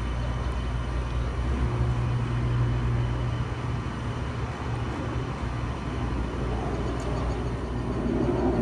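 Steady low rumble of distant engine noise, with a faint hiss over it, getting a little louder near the end.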